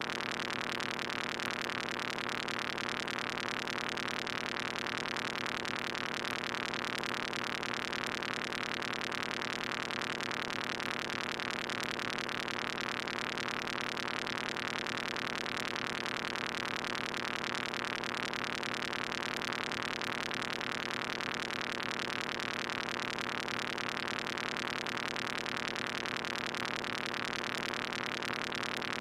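Moog Mother-32 analog synthesizer sounding a steady, buzzing and hissy drone over a held low tone, its sound driven by chaotic modulation from a Comdyna GP-6 analog computer solving the Lorenz equations.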